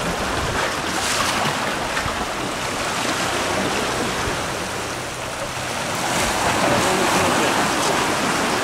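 Surf washing and splashing over jetty rocks, a steady rush that grows louder near the end.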